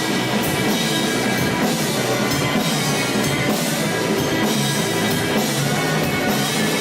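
Live rock band playing an instrumental passage with full drum kit and electric guitars, steady and dense, with cymbal hits at a regular beat.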